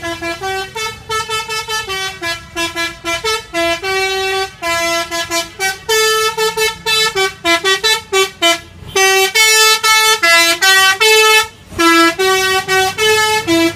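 Telolet bus horn, a set of tuned horns, playing a quick melody of short toots that hop between a few pitches, with some longer held notes and a brief break about twelve seconds in.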